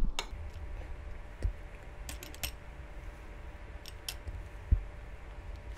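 Metal spoon clinking and tapping against a ceramic sauce bowl and cockle shells while sauce is spooned on: a handful of light, scattered clicks.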